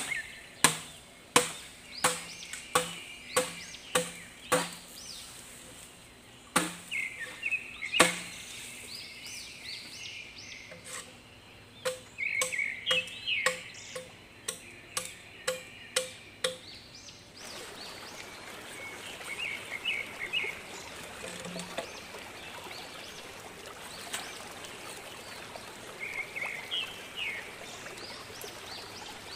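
Repeated chopping strikes of a blade, about one and a half a second, in several runs separated by short pauses, with birds chirping. From a little past halfway, the chopping stops and a steady rush of running water from a stream takes over.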